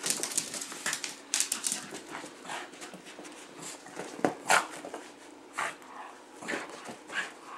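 Small dog's noises while it runs for and mouths a plush toy in a game of fetch: a string of short, sharp sounds, loudest about four and a half seconds in.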